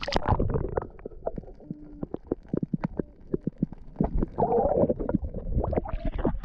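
Muffled underwater gurgling and bubbling from a camera held under the surface as a redfish is released, with many short pops and knocks as water and bubbles move over the housing.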